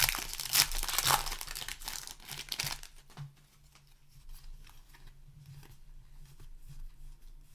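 Crinkly plastic wrapper of a Magic: The Gathering booster pack being torn open and crumpled, loud for about the first three seconds. After that come faint rustles and light clicks of cards being handled.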